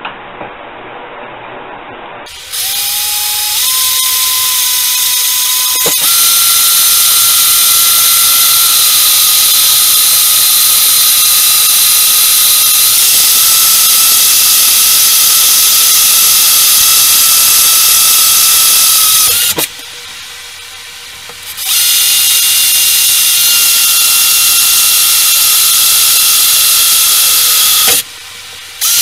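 Electric drill whining as it bores into a small workpiece clamped in a vise. The motor starts about two seconds in and steps up in pitch, then gets louder with a cutting hiss. It stops for about two seconds two-thirds of the way through, runs again, and pauses briefly near the end.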